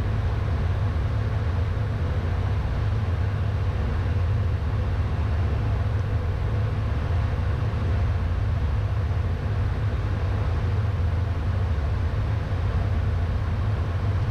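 Steady cockpit noise of a Beechcraft Premier I business jet descending on final approach: an even low rumble with a faint steady hum above it.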